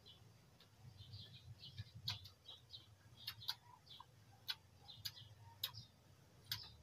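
Faint mouth smacks and clicks of someone chewing fried pork trotters, several sharp smacks spread irregularly about a second apart.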